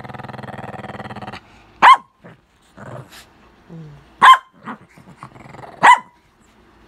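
Shih Tzu growling steadily for about a second and a half, then giving three sharp barks roughly two seconds apart.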